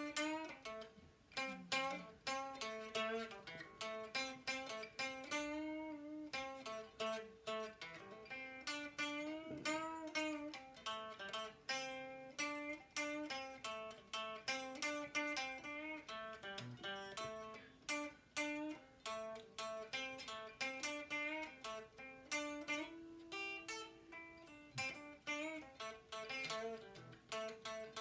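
Acoustic guitar playing a solo instrumental break without singing: a steady run of picked single notes moving up and down in pitch.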